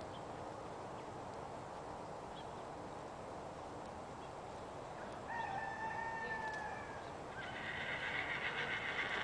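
A horse whinnying, a quavering call lasting about two seconds near the end, after a shorter, even-pitched animal call about halfway through; otherwise faint outdoor background.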